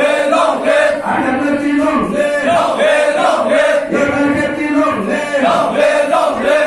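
A crowd of people chanting political slogans in unison, shouting short phrases over and over in a steady rhythm.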